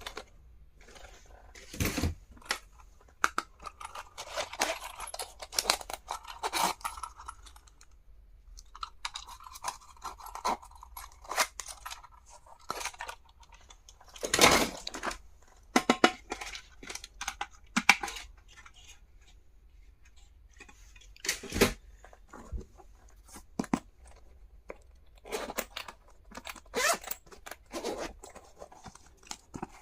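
Stationery and its packaging being unwrapped and handled: rustling and tearing, with scattered sharp clicks and knocks from items being picked up and set down.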